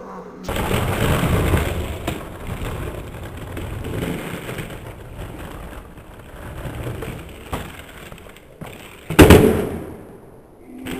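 Skateboard wheels rolling over rough asphalt, then about nine seconds in a loud sharp clack of the board striking the pavement as the trick is attempted.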